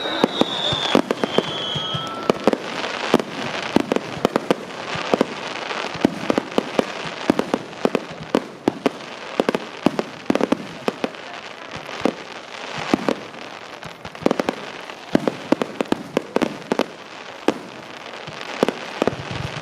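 Aerial fireworks display: shells bursting in a continuous barrage, sharp bangs several a second at irregular intervals over steady crackling.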